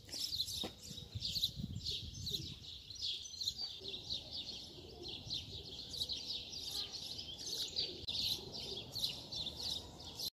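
A chorus of many small birds chirping and twittering in quick, overlapping calls, over a low rumble. The sound cuts off suddenly near the end.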